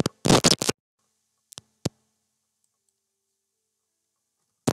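Computer mouse and keyboard clicks: a quick run of several clicks in the first second, two single clicks a little later, and one more near the end, with silence in between.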